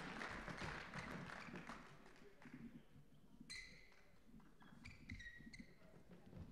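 Faint squeaks of court shoes on an indoor sports floor, one about halfway through and a short cluster near the end, with soft footsteps. The hall's noise dies away over the first couple of seconds.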